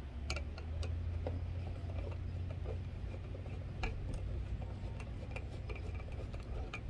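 A few light, sharp clicks and taps from hands handling the plastic foot and cover of a roof-rack crossbar, heard over a low, steady rumble.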